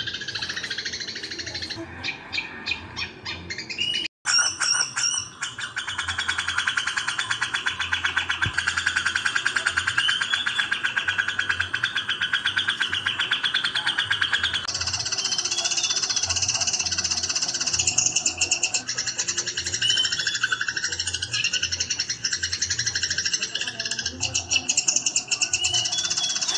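Eurasian tree sparrows giving rapid, dense fighting chatter, layered with the song of a grey-cheeked bulbul, in one continuous mix of birdsong. It drops out briefly about four seconds in, then resumes.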